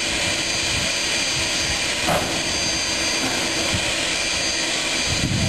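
Standing narrow-gauge steam locomotive with its fire up, a steady hiss of steam.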